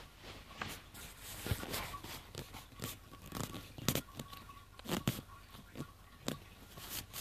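Handling noise close to the microphone as a person shifts and settles: scattered, irregular clicks and crackles, the loudest about four and five seconds in.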